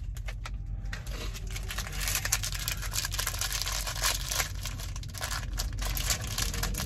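Plastic wrapper of a sealed Skittles packet crinkling in the hand as it is turned and squeezed, a dense run of crackles starting about a second in.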